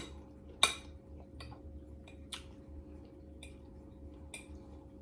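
Metal fork clicking against a plate as food is picked up: about six short, scattered clicks, the first the loudest.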